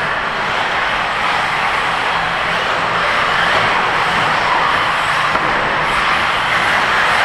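1/8-scale radio-controlled off-road buggies racing around the track, a steady loud din of their motors with no break.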